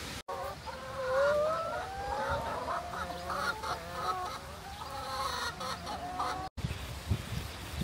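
A flock of chickens clucking and calling, with one drawn-out rising call about a second in. The calls cut off abruptly near the end.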